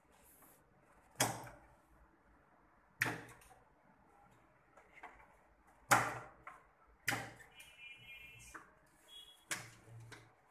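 Scattered sharp knocks and clicks, about five of them a second or two apart, from tools and parts handled on a wooden workbench while a magnetic contactor control circuit is being wired. Two short, faint high-pitched tones come through about two-thirds of the way in.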